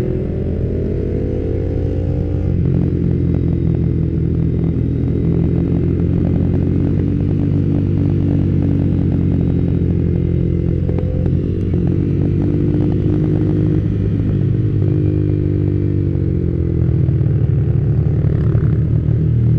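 Yamaha Vixion R's 155 cc single-cylinder engine running under way at low road speed, its pitch climbing over the first couple of seconds, then dipping and climbing again a little past halfway. Scattered short clattering knocks run through the middle.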